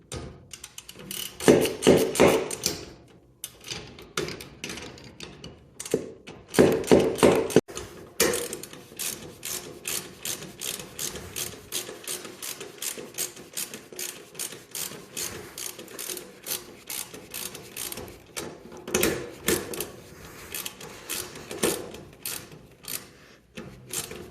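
Hand socket ratchet clicking stroke after stroke as it tightens a nut to take up slack in a garage door opener's drive chain. Louder, quicker runs of clicks come about two seconds in, about seven seconds in and near the end, between steadier strokes of about three clicks a second.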